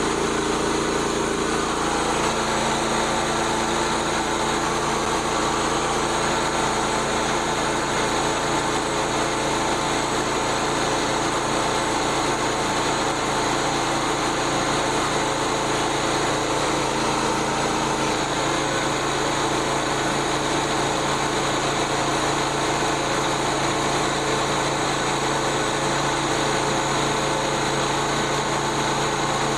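Small gasoline engine of a Frontier OS27 portable sawmill running steadily at working speed, with a slight change in its tone about two-thirds of the way through.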